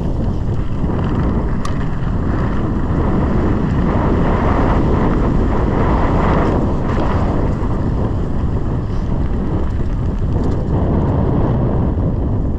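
Steady wind rush buffeting the camera microphone as a mountain bike rides down a dirt trail, mixed with low rumble from the bike over the ground.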